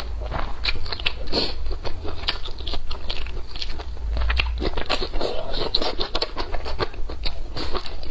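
Close-miked biting and chewing of crunchy food: an irregular, rapid run of crisp crunches over a steady low hum.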